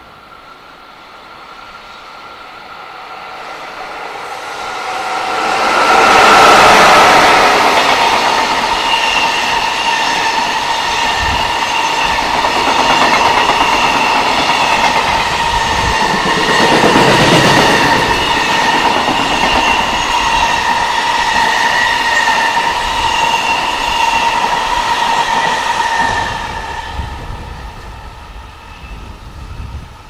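Long container freight train passing at speed: the rumble builds, peaks as the head end goes by about six seconds in, then the wagons rush and clatter past with a steady high ringing tone over them, fading near the end.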